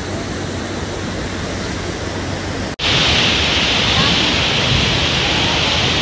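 Steady rush of a mountain stream and waterfalls. About three seconds in it cuts abruptly to a louder, hissier rush of water close by.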